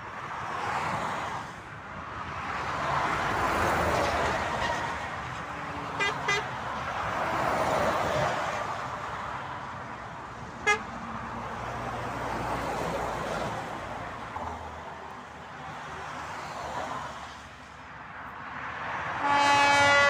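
Motorway traffic going past, with trucks and cars swelling and fading one after another. Two very short horn toots come about six seconds in and a single short toot near eleven seconds. The loudest sound is a passing DAF truck's air horn blowing one strong note just before the end.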